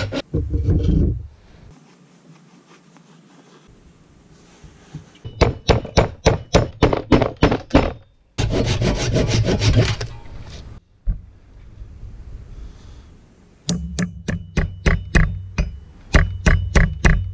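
Hammer blows seating an axe head on a zebra wood handle and driving a metal wedge into its eye: two quick runs of strikes, about three or four a second, the later ones with a light metallic ring. Between the runs comes about two seconds of steady scraping.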